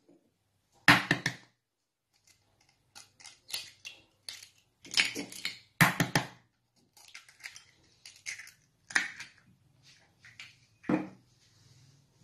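Eggs being cracked on the rim of a white ceramic bowl and broken open: sharp taps and shell crackles at uneven intervals, with the shells set down in a small dish. The loudest knocks come about a second in and again around six seconds.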